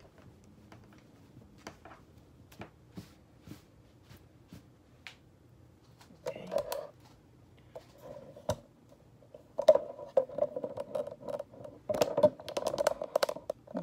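Rustling and rubbing of satin fabric being handled, with scattered light clicks and taps. The rustling turns louder and busier about six seconds in and again over the last four seconds.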